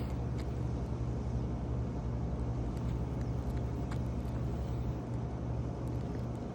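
A steady low engine drone, like a motor running at idle, with a few faint ticks over it.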